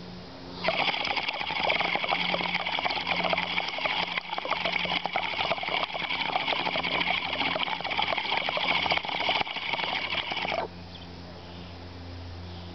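Water bubbling and gurgling in a glass dab rig as someone draws a hit through it: a dense, crackly run of bubbles that starts about half a second in and stops abruptly after about ten seconds.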